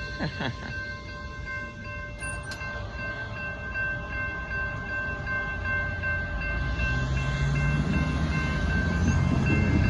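Amtrak diesel locomotive horn held in one steady chord throughout. Under it, the low rumble of the approaching train grows louder over the last few seconds.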